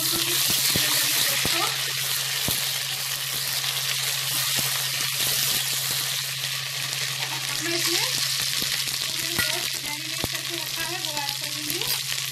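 Ginger garlic paste frying in hot oil with fried onions in a steel pot: a steady loud sizzle as it is stirred, with a few light clicks.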